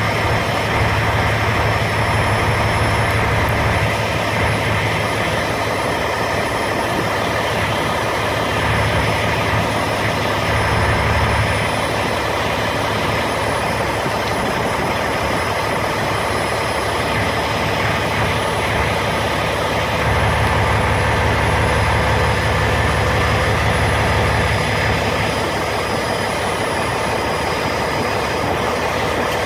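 Carrier Transicold XTC trailer refrigeration unit running steadily: its diesel engine and fans, with a low hum that swells slightly now and then.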